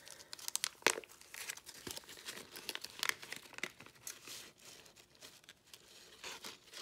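Clear plastic incense packet crinkling and crackling in the hands as it is opened, in a rapid irregular series of small crackles, with another flurry near the end.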